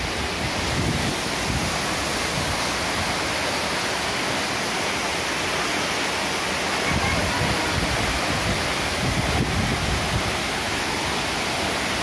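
Steady rushing of a tall waterfall and of stream water cascading over rocks. In the second half, low gusts of wind buffet the microphone over it.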